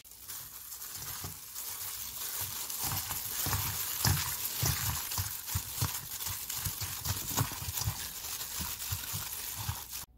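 Raw chicken drumsticks being mixed by a gloved hand with a chili-paste marinade in a stainless steel bowl: wet squishing with soft, irregular thumps as the pieces are turned over. It cuts off suddenly near the end.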